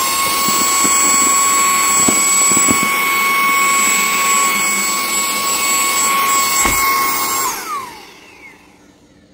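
SUiTU ST6645 Pro handheld vacuum cleaner's brushless motor running with a steady high whine over a rush of air, with a few light knocks. About seven and a half seconds in it is switched off, and the whine falls in pitch as the motor spins down.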